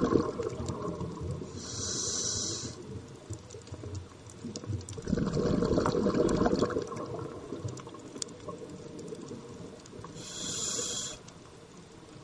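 Scuba diver breathing through a regulator underwater: a short hissing inhale about two seconds in and again near the end, with a longer rush of exhaled bubbles between them.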